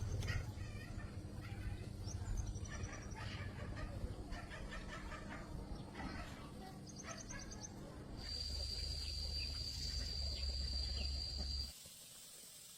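Poultry calling over and over, with small birds chirping high above. About eight seconds in, a steady high whine with a low hum comes in, and both cut off suddenly near the end, leaving a faint hiss.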